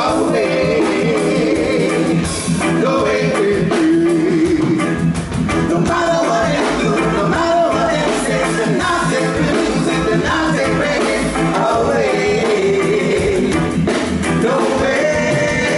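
Live reggae music: several singers singing together into microphones over a live backing band with a steady drum beat.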